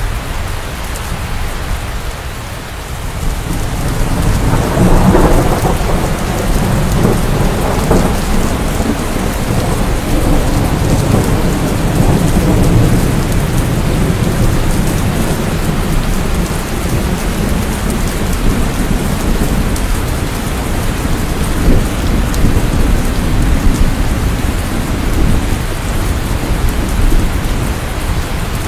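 Steady rain with thunder rumbling underneath; a roll of thunder swells about four seconds in and rumbles on for several seconds.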